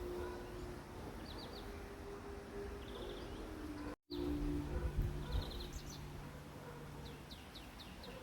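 Small birds chirping outdoors in short quick trills and downward-slurred notes, over a low steady hum. The sound drops out completely for a moment about halfway through.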